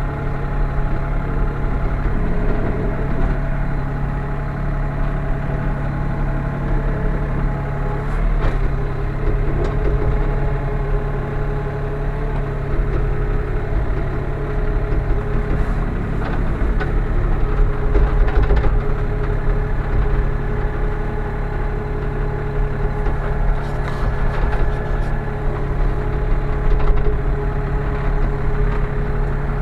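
Sany SY35U mini excavator's diesel engine running steadily at a constant speed, heard from inside the cab, with a few light clicks now and then.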